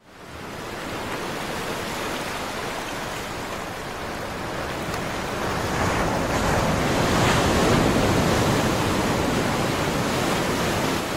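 Small waves washing up onto a sandy beach: a steady rush of surf that fades in at the start and swells a little past the middle.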